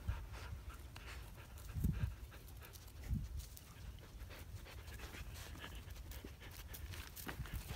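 Dog panting and sniffing with its nose pushed into a mouse hole in dry earth, with a couple of short louder breaths about two and three seconds in.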